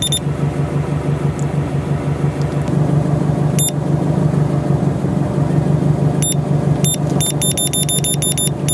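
The car's turbocharged 2.5-litre flat-four engine idling steadily, with a pulsing low hum. Over it the Cammus OBD gauge gives short high electronic beeps as its remote's buttons are pressed: a few single beeps, then a rapid run of beeps near the end as a value is stepped through.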